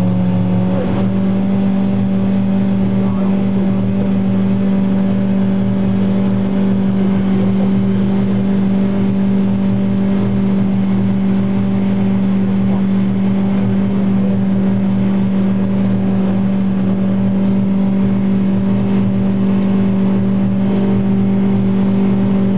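Triumph Daytona motorcycle engine running on a test dynamometer, held at a steady speed with an even, unchanging pitch.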